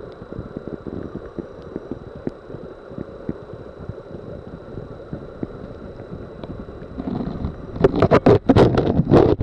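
Muffled underwater sound picked up through a submerged camera: a steady low rumble with light knocks and a faint steady high whine, then, about seven seconds in, a run of loud sharp knocks and rustles.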